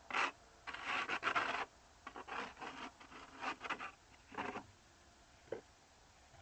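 A series of uneven scraping and rubbing strokes, the longest about a second in, the later ones shorter and fainter, with a single short click near the end.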